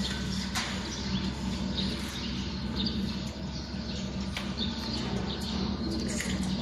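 Steady workshop hum with a few light clicks and knocks of metal frame parts being test-fitted, and faint bird chirps in the background.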